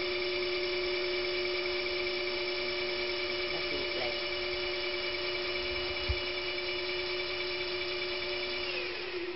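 Portable line boring machine's feed drive whining steadily at one pitch as the boring bar traverses on fast feed. There is a single light knock about six seconds in, and near the end the whine drops in pitch as the drive slows.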